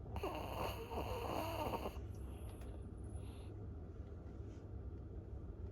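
Loud snoring: one long snore on the in-breath of about two seconds, with a wavering, whistly pitch, followed by a much softer breath out.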